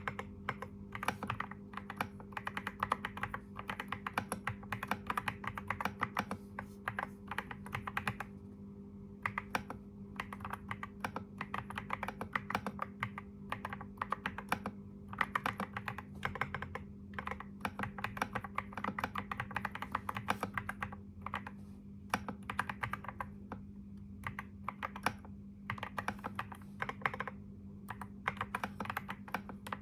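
Typing on a computer keyboard: fast runs of keystroke clicks broken by short pauses, over a faint steady hum.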